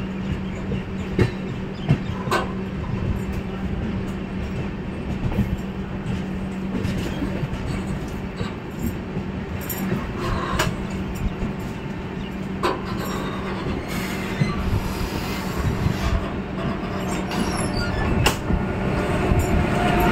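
Passenger train running along the track, heard from an open coach door: a steady rumble of wheels on rail, with scattered sharp clicks as the wheels cross rail joints and points. It grows louder near the end.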